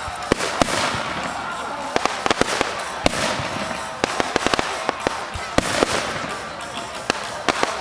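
Fireworks bursting overhead: many sharp bangs and clusters of rapid crackling, over a steady hiss.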